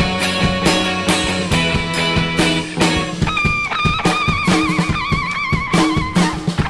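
Instrumental rock music: guitars and a drum kit keeping a steady beat. From about three seconds in, a high melody line comes in, held with a wavering vibrato, and it drops out shortly before the end.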